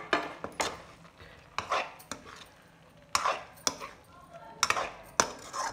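Steel spatula stirring potato pieces into a thick masala in a kadhai, with a series of irregular scrapes and knocks against the pan.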